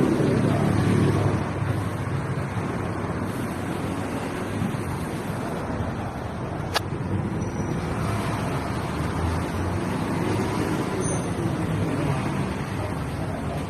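Steady running of a vehicle engine, a low hum that eases slightly after the first second, with a single sharp click about seven seconds in.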